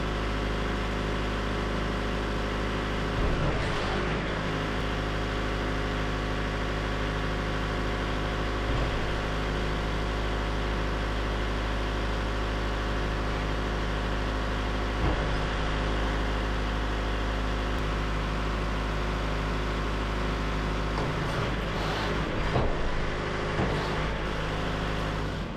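Wood-Mizer LT70 sawmill's diesel engine running steadily, driving the hydraulics while the mill's hydraulic arms are lowered, with a few clunks along the way.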